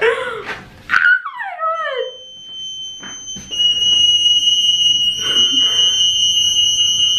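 Lift emergency alarm sounding a steady high-pitched tone, set off in a lift that is stuck between floors. It starts about two seconds in and becomes much louder about a second and a half later, then holds unbroken.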